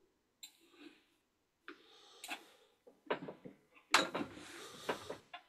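Scattered faint clicks and short rustles close to a microphone, about half a dozen at uneven intervals, with silence between them.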